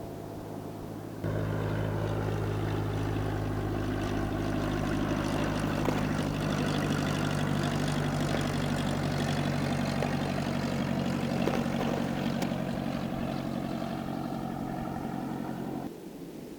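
Cessna 172's piston engine and propeller droning at a steady pitch. The sound cuts in abruptly about a second in and cuts off just as abruptly near the end.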